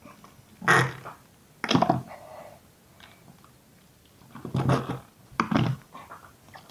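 Stretchy slime squelching and letting out sharp pops of trapped air as a hand pushes down into it inside a jar: four loud squelches, two about a second apart near the start and two more close together past the middle.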